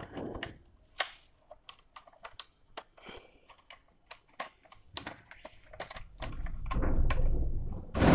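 Small plastic clicks and taps from fingers fitting a part into the underside of an HP Pavilion g4 laptop, scattered irregularly. A low rubbing handling noise builds near the end and ends in a louder scrape.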